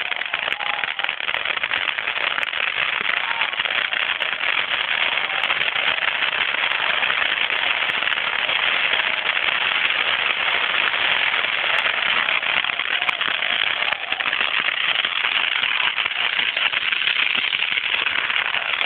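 Crackling pyrotechnics going off in a dense, unbroken stream of small pops.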